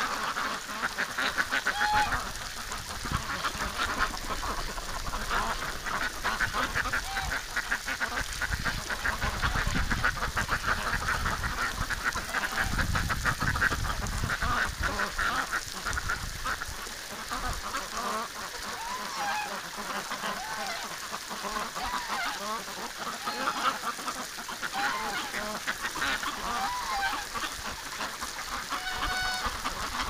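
A crowded flock of domestic ducks, mostly Pekins, quacking and chattering without pause, with some louder honking calls among them.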